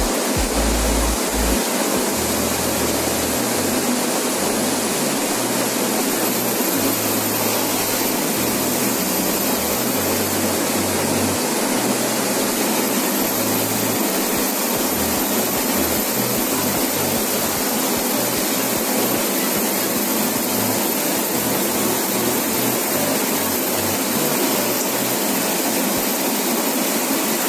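Steady rush of wind and road noise inside a bus cabin travelling at highway speed.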